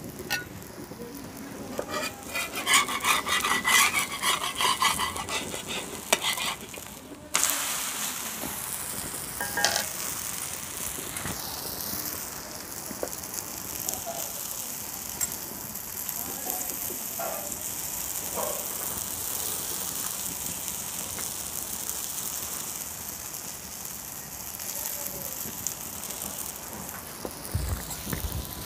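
A puda pancake frying in a hot iron pan over a wood fire, with fat spooned onto it: a steady high sizzle that starts suddenly about seven seconds in. Before it, a few seconds of rapid metal-on-metal scraping and clinking.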